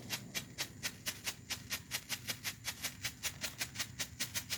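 Strobe ('flasher') firework burning on the ground, popping in a rapid even rhythm of about six or seven sharp crackles a second, one with each flash.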